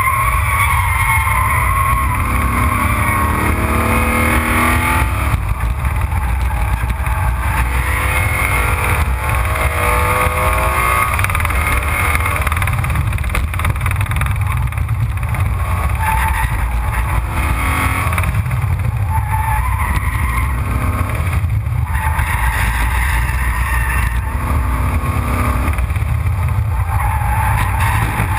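Race car at speed on a track, heard from a microphone low on the front splitter: heavy wind buffeting and road roar, with the engine note rising in pitch under acceleration several times.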